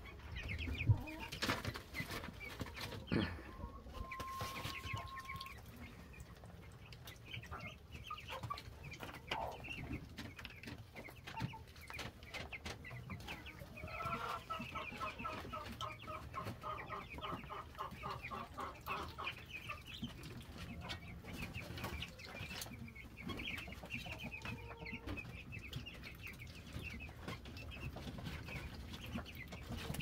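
A pen of young meat chickens and ducklings calling, with many short cheeps and peeps scattered over faint ticks and scratching. About halfway through, one bird gives a quick run of repeated peeps for several seconds.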